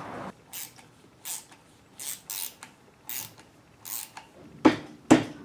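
Ratchet driver with a T25 Torx bit clicking in about six short spells as screws on an automatic transmission's locating-ring access cover are backed out, followed by two sharper, louder knocks near the end.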